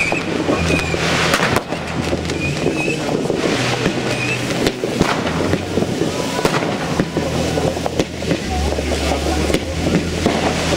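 New Year's fireworks: ground fountains spraying sparks with a dense, continuous crackling, with rockets launching and sharp pops scattered through. Short whistling tones come near the start and again about four seconds in.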